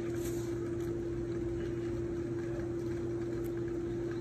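Steady motor hum with a constant mid-pitched tone and a lower drone beneath it, unchanging throughout.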